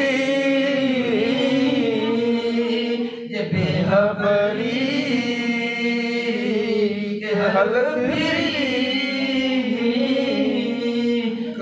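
A man singing an Urdu naat unaccompanied, in long drawn-out wavering phrases, with short breaks for breath about three and seven seconds in.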